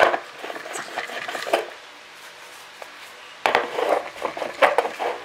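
Glass mugs of iced tea set down and slid on a wooden tabletop: clusters of glass-on-wood clunks with the ice clinking inside, at the start, about a second in, and again from about three and a half seconds.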